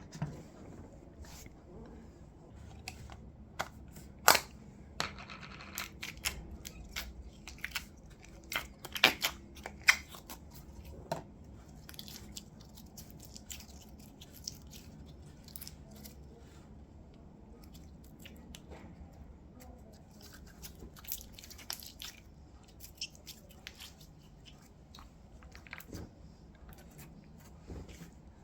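Slime and modelling clay being handled and mixed by hand, giving scattered sticky clicks and crackles, the loudest few in the first ten seconds.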